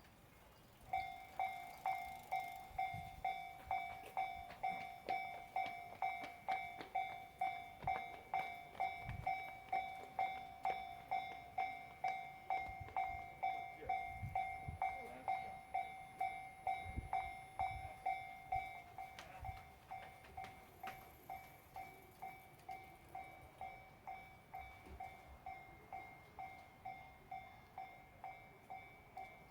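Japanese railway level-crossing alarm: an electronic bell dinging rapidly at an even pace. It starts about a second in and drops to a quieter level a little past halfway.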